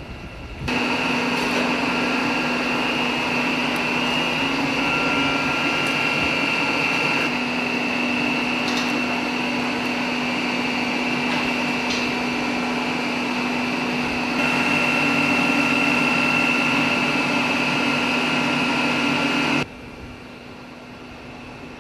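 Boiler-room machinery of a coal-fired boiler running: a loud, steady mechanical hum with a fixed low tone and a high whine. It starts abruptly under a second in and cuts off abruptly near the end.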